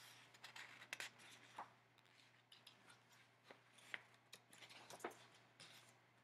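Faint rustling of a picture book's paper page as it is lifted and turned, with scattered small clicks and rubs of fingers sliding on the paper.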